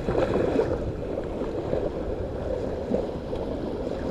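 Small waves lapping and gurgling against the hull of a small fishing boat, a steady watery wash with a few faint ticks.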